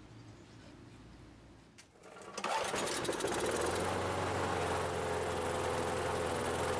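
Briggs & Stratton 158cc single-cylinder lawn mower engine pull-started after three primer squirts, catching on the first pull about two seconds in and then running steadily.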